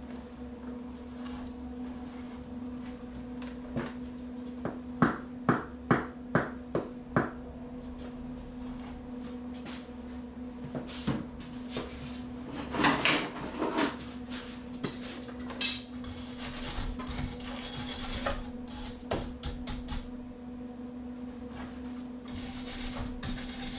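Scattered metallic clinks and knocks from steel parts and tools being handled, with a quick run of about six knocks around five to seven seconds in and another cluster a little past the middle. A steady hum runs under them.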